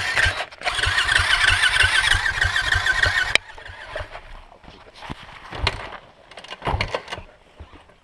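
A loud engine running, with a warbling high-pitched squeal over quick low pulses, cut off suddenly about three and a half seconds in. Scattered knocks and clicks follow.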